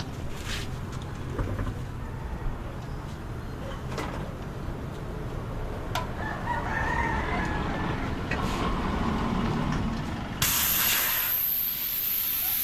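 A rooster crows about six seconds in, over a steady low rumble of road traffic. About ten seconds in, a loud steady hiss of air starts suddenly and keeps going.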